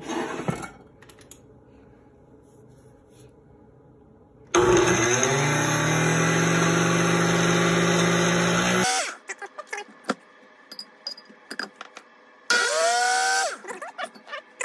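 Cuisinart countertop blender with a glass jar packed with frozen banana chunks, run in two pulses: a loud run of about four seconds starting about four seconds in, then a burst of about a second near the end, its motor whine rising in pitch as it spins up each time. A few light clicks and knocks between the runs.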